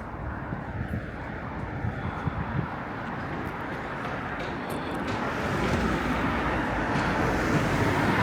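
Road traffic noise growing steadily louder as a vehicle approaches, with wind rumbling on the microphone.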